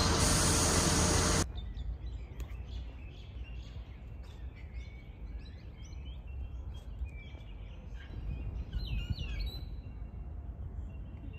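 A loud, even rush of noise that cuts off abruptly about a second and a half in, then small birds chirping in many short, repeated calls over a faint low rumble.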